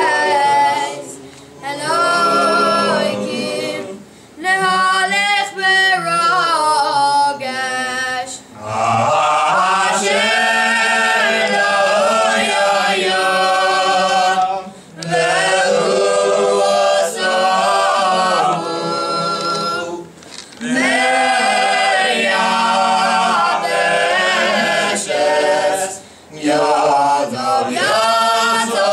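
Men's voices singing Selichot prayers unaccompanied, a prayer leader together with the congregation, in melodic phrases with short breaks every few seconds.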